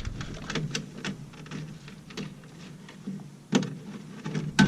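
Footsteps, about two a second, with two louder knocks, one about three and a half seconds in and one near the end.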